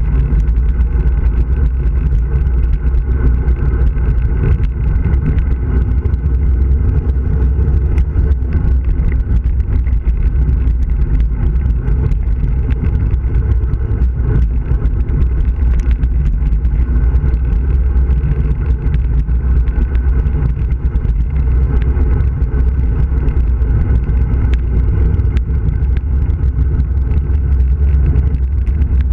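Loud, steady wind rumble buffeting the microphone of a camera mounted on a bicycle speeding downhill.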